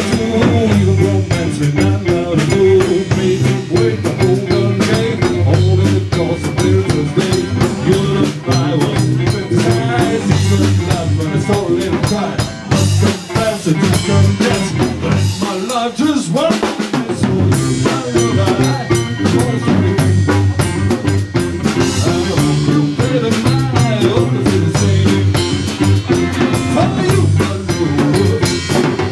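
A blues-rock band plays live without vocals: a drum kit with snare and bass drum, over bass and guitar. About halfway through, the bass drops out for a moment.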